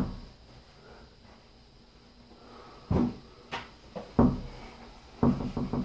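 Quiet for about three seconds, then a string of knocks and clunks from things being moved and handled, with several in quick succession near the end.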